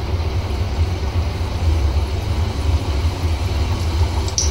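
A samosa deep-frying in hot oil in an iron kadhai on a low flame, bubbling with a steady sizzle over a steady low rumble.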